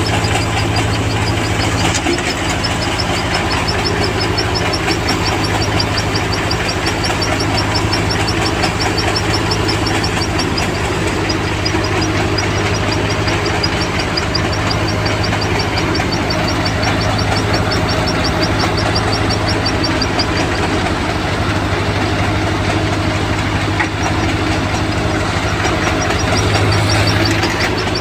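Engine of a soybean harvesting machine running steadily at a constant speed. A rapid, evenly repeating high chirping runs over it and drops out for a few seconds near the end.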